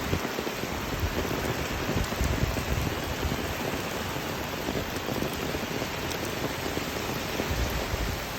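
Rain falling steadily, a constant even hiss with an uneven low rumble underneath.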